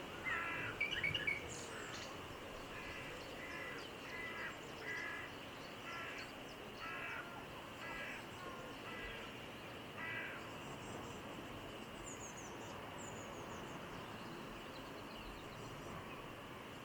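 A bird gives a series of harsh calls, a quick cluster at the start and then single calls about once a second, stopping about ten seconds in. Faint high chirps from a small bird follow a little later.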